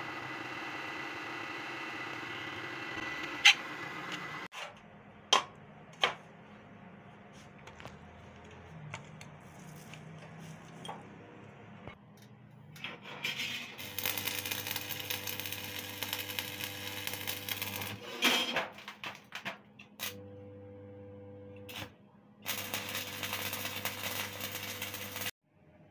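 A drill press running steadily as it bores into steel plate, then a few sharp knocks. Later, electric arc welding on steel sheet: the arc crackling in two spells of a few seconds each over the welding machine's steady hum, with the hum alone between them.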